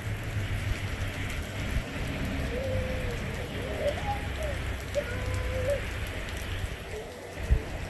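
Steady rain falling and pattering on the ground, with a low rumble underneath. A single sharp knock comes near the end.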